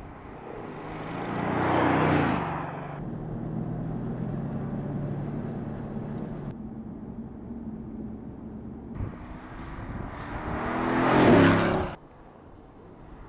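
Mercedes-AMG GT's twin-turbo V8 engine. It swells loudly as the car passes about two seconds in, then holds a steady engine note, then builds to a second, louder peak and cuts off suddenly near the end.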